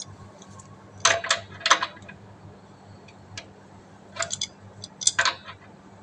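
Small metal clinks and rattles of a plumbing fitting being handled and screwed onto the water pipe under an electric water heater: short clusters of clinks about a second in, again near two seconds, and twice more in the second half.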